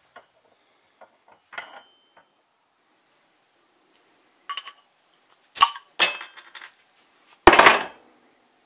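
Metal railroad-spike bottle opener clinking against a glass beer bottle and its crown cap, then a couple of sharp snaps as it catches the cap. Near the end the cap pries off with the loudest sound: a short burst with a hiss of escaping gas.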